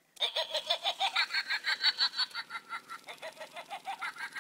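Knockoff Laughing Witch toy switched on and playing its recorded laugh: a rapid ha-ha-ha cackle that starts right away and gets a little quieter about halfway through.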